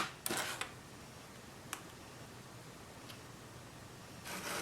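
Plastic packaging bag rustled briefly as it is handled, with a couple of small sharp ticks in between and a second short rustle near the end.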